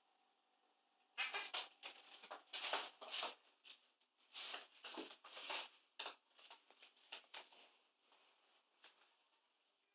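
Two cats playfighting on a coir doormat: a quick run of short scuffling and rustling noises that starts about a second in, is busiest in the first half and thins out near the end.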